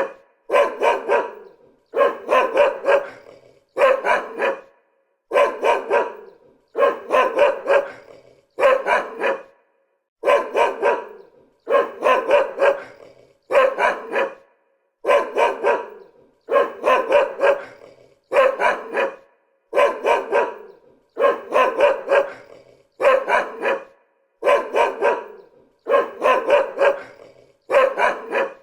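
A dog barking over and over in short bursts of two or three barks, with a brief silence between bursts.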